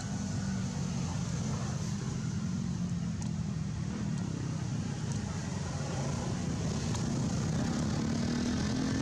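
A steady engine drone with a low hum that wavers in pitch and rises slightly near the end.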